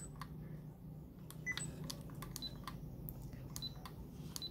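Fujifilm FinePix HS20 EXR's buttons and command dial clicking lightly about a dozen times as they are pressed, several presses answered by the camera's short high electronic beeps.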